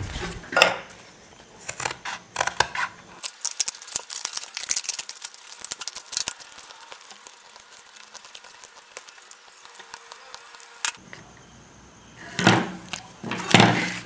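Scissors cutting through the foil-lined cardboard of a flattened Pringles can, a dense run of rapid crackling snips and foil crinkles. There are a few louder handling knocks at the start and near the end.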